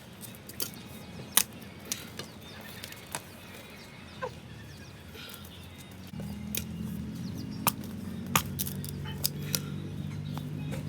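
Irregular sharp taps and clicks of bamboo pieces being handled and worked. A low steady hum joins about six seconds in.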